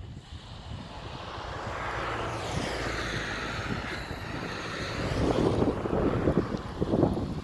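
A rushing noise swells over a few seconds, with a sweeping, whooshing quality like something passing. From about five seconds in, wind gusts buffet the microphone.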